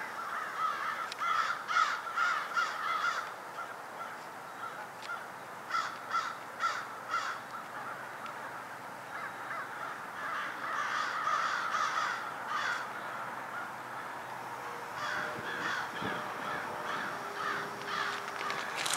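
Crows cawing over and over, several birds calling over one another in runs of calls with short lulls between.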